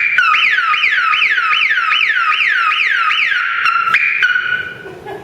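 Car alarm siren sounding: a two-tone warble, then a run of falling whoops about three a second, then the two-tone warble again, stopping about four seconds in. The car's alarm system is armed.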